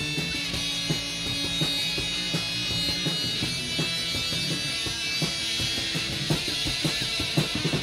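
Instrumental break in a rock song: guitar and drum kit playing a steady beat, with no singing.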